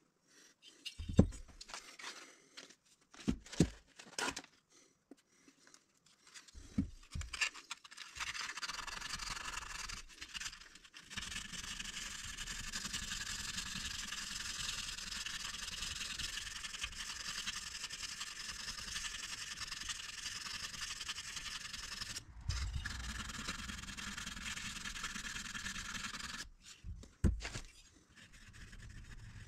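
Sandpaper rubbing steadily by hand inside the port of a Predator 420cc cylinder head, smoothing it out after porting. A few knocks of the metal head being handled against the bench come at the start and near the end.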